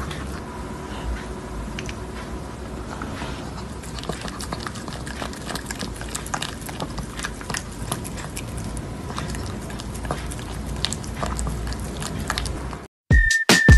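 A small dog chewing and biting a crumb-coated treat, with many small irregular crunches. Near the end it cuts to loud electronic music with a whistled tune and a beat.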